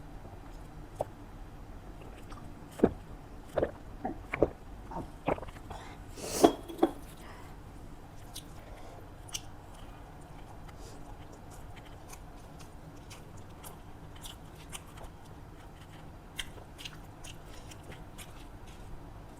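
A person eating close to the microphone: a run of sharp crunchy bites and clicks in the first seven seconds, then quieter chewing with small mouth clicks.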